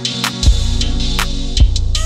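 Background music with a drum beat; the low bass drops out briefly at the start.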